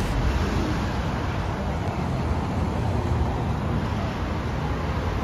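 Steady city street traffic: a continuous low rumble of car and bus engines and tyres with a hiss of road noise.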